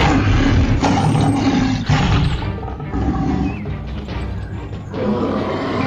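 A dubbed monster roar sound effect, rough and loud for about five seconds, over cheerful background music that comes to the fore near the end.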